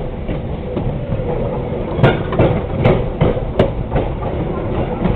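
Train wheels rolling on the track with a steady rumble, heard from aboard the moving train, with three sharp clicks of the wheels over rail joints about two, three and three and a half seconds in.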